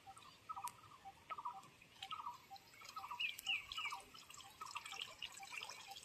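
Faint drips and small splashes of water as a net is worked in a shallow pond, heard as scattered sharp clicks. Behind them a pulsing animal call repeats steadily about two to three times a second, with a few short falling chirps about three seconds in.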